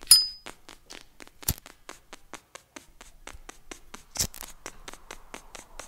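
Rapid, even clicking, about seven clicks a second, with a brief high ping at the very start and two louder knocks about one and a half and four seconds in.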